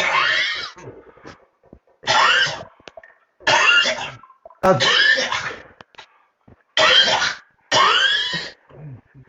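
A person coughing: six loud coughs, each under a second long, with short, uneven pauses between them; within each cough the pitch rises and then falls.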